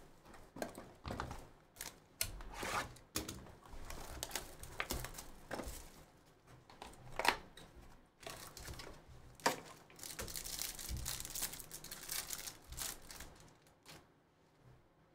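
Hands opening a trading-card box: cardboard and plastic wrapping rustling, crinkling and tearing, with scattered clicks and taps from handling, and a longer stretch of crinkling and tearing about ten seconds in.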